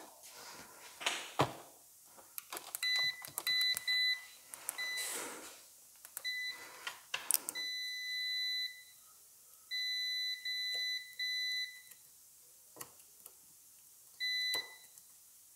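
A digital multimeter's continuity beeper sounds in short beeps and a few held beeps of about a second, starting and stopping again and again as test probes touch and leave contact pads. Each beep signals a closed circuit between the two probed points. Light clicks and scrapes of the probe tips fall between the beeps.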